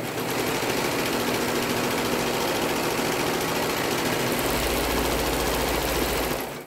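Brother 1034DX serger (overlocker) running steadily at speed as it stitches a fabric seam, then stopping near the end.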